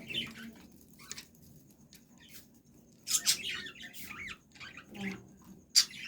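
Birds chirping in short, high, squeaky calls. The calls come in scattered bursts, with the loudest cluster about three seconds in and a sharp call near the end.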